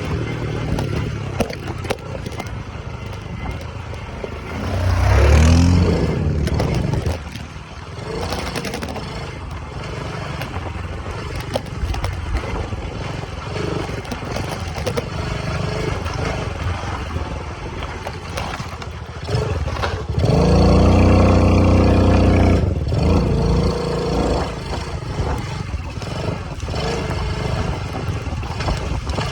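Dirt bike engine running, with a loud rev about five seconds in and a longer, louder burst of throttle around twenty seconds in, over rattling and scraping from the ride.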